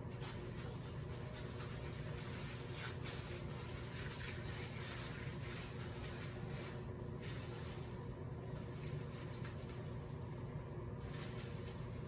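Hands rubbing and squeezing shampoo lather through wet hair: a soft, irregular squishing and rustling that eases off briefly a few times, over a steady low hum.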